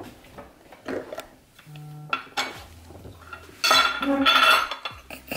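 Glass jars and their screw-top lids handled on a countertop: a sharp click, a few light knocks, then a louder ringing clatter about four seconds in as the jars and lids are set down.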